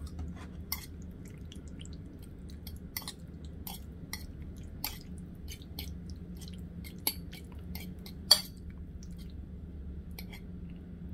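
Metal fork clinking and scraping against a ceramic plate while stirring pasta in sauce: a string of sharp irregular clinks, the loudest about eight seconds in, over a steady low hum.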